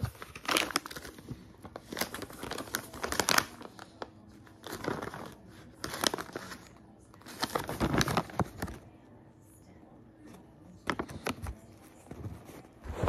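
Plastic dog-treat pouch crinkling in the hands as a treat is taken out, in irregular bursts with a couple of short pauses.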